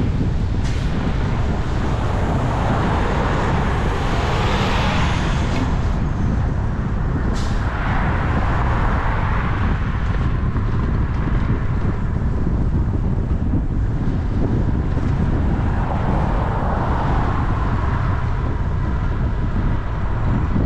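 Road traffic passing a cyclist: vehicles swell and fade about three times over a steady low rumble of wind on the microphone.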